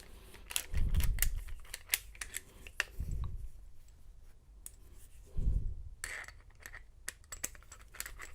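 Rummaging through small tools on a desk while searching for a lock pick: many light clicks and clatters of small hard objects, with three dull thumps, about a second in, at three seconds and at about five and a half seconds.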